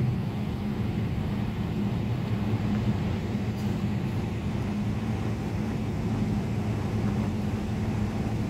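Cabin noise of a Boeing 777 airliner taxiing: a steady low hum and rumble from the engines at taxi power and the rolling aircraft.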